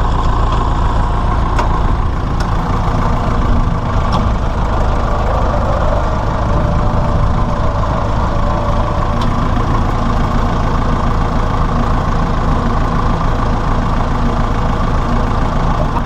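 Massey Ferguson 168 tractor's four-cylinder diesel engine running steadily, with a few faint clicks over it.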